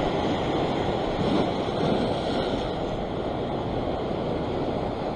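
Surf breaking and washing over a rock shelf, a steady rush of water, with wind on the microphone.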